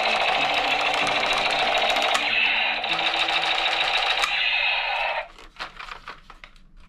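Battery-powered toy M4-style rifle playing its electronic firing sound effect: a fast rattling machine-gun burst over a stepping electronic tone. It cuts off about five seconds in, followed by a few light plastic handling clicks.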